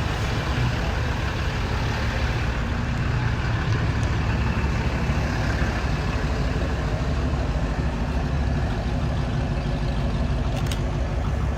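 A motor vehicle engine running steadily with a low rumble, and a short click near the end.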